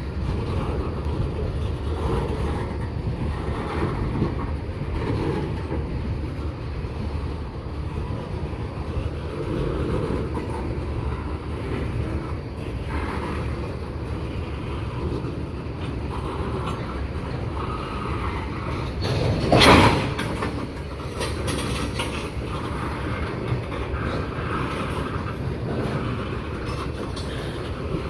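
Railroad cars rolling past with steady wheel-on-rail noise. About two-thirds of the way through, a short, loud burst of noise stands out above it.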